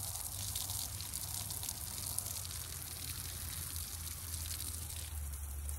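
Garden hose spraying water onto plants, a steady hiss that stops about five seconds in, over a low steady hum.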